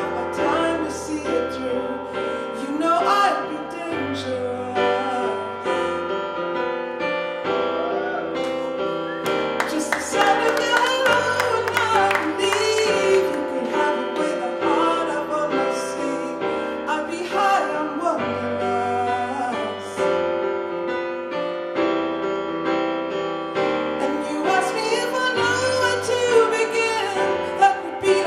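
Live music: a woman sings lead into a microphone, accompanied by keyboard chords.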